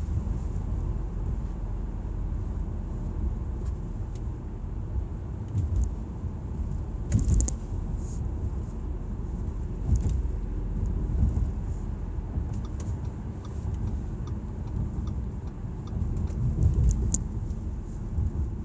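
Audi A4 running on the move: a steady low rumble of engine and road, with a few short knocks or rattles about seven and ten seconds in. This is the noise the owner hears when accelerating.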